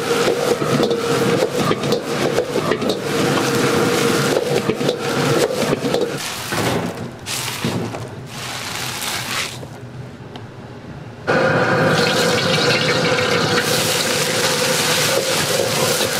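Egg fried rice being stir-fried in a steel wok over a gas burner: a metal spatula scrapes and tosses the rice against the pan amid a steady hissing sizzle. The sound drops away quieter about six seconds in, then a loud hissing sizzle cuts back in abruptly about eleven seconds in as sliced onions and carrots are stir-fried in the wok.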